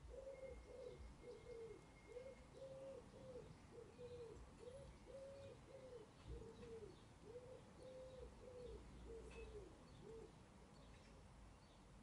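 A dove cooing in the background: a long run of low, repeated rising-and-falling coos that stops about ten seconds in, with faint small-bird chirps above it.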